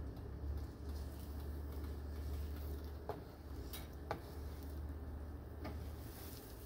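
Slotted nylon spatula scraping and tapping against a nonstick frying pan as soft scrambled eggs are pushed and divided into portions. There are a few light clicks about halfway through, over a low steady hum.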